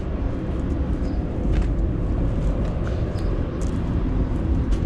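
Steady low rumble outdoors with a scattering of short light clicks, like footsteps on pavement.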